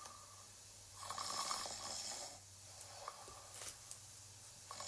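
A person imitating a sleeping bear's snoring: slow, breathy snores, a stronger one about a second in and a softer one around three seconds.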